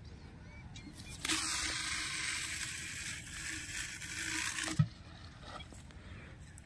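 Fishing reel spinning with a steady whirr for about three and a half seconds, starting and stopping abruptly, then a short low knock.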